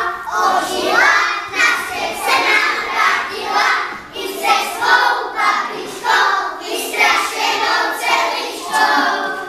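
A group of young children singing a song together, without accompaniment; the singing stops near the end.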